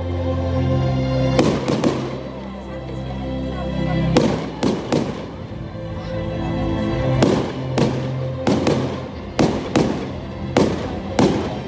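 Fireworks display: about a dozen sharp bangs with echoing tails, coming closer together in the second half, over background music with long held notes.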